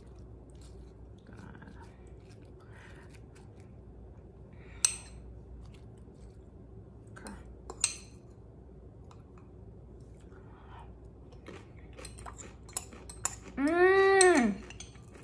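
A fork scraping shredded cabbage coleslaw out of a glass mixing bowl into a small glass bowl, with a few sharp clinks of the fork against the glass. Near the end a hummed "mmm" rises and falls in pitch for about a second.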